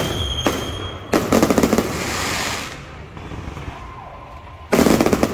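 Aerial fireworks going off. A loud, rapid crackling burst starts about a second in and lasts a couple of seconds, and another loud burst comes near the end. A high whistle fades out at the start.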